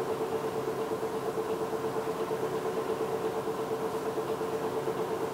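Cabin sound of a Hino Blue Ribbon II QPG-KV234N3 diesel city bus standing still: the engine idling with a steady, even hum.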